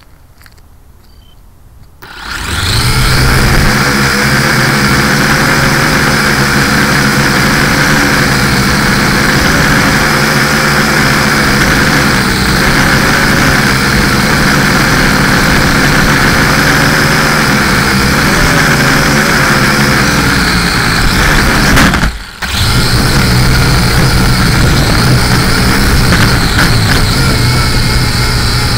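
LaTrax Alias quadcopter's four motors and propellers spinning up about two seconds in, then running at a steady whine, heard from the camera on the craft itself. About three-quarters of the way through the sound cuts out for a moment and then picks up again.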